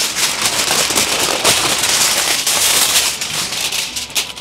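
A sheet of aluminium foil crinkling and crackling steadily as it is handled and pressed down into a small baking tray.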